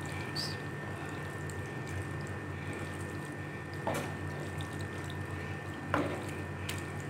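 Spatula stirring thick, creamy white-sauce pasta in a pan: soft, wet squelching, with two light knocks about four and six seconds in, over a steady background hum.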